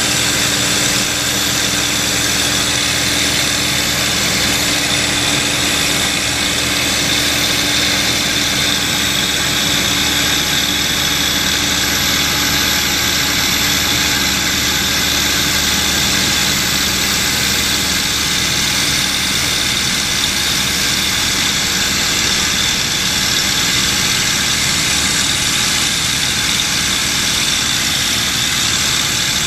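P-51D Mustang's Packard Merlin V-12 engine running steadily in flight, heard from inside the cockpit.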